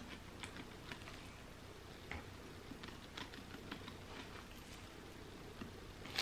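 Seasoning being shaken from a spice shaker bottle onto a rotisserie chicken: faint, irregular ticks and patter, a few a second, from the shaker and the falling grains.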